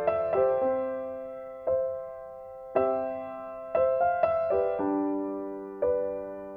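Background music: slow keyboard chords, each struck and left to fade, about one a second.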